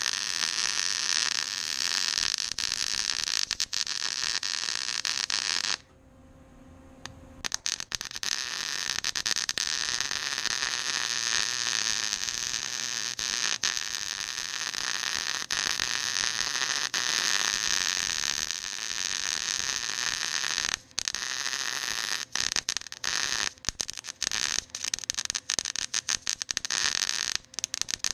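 Welding arc crackling steadily with the frying-bacon sizzle of a good weld. The arc breaks off for a second or so about six seconds in, then strikes again. Near the end it cuts in and out several times.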